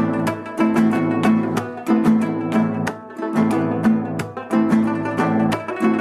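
Background music: an acoustic guitar strummed in a steady, repeating rhythm.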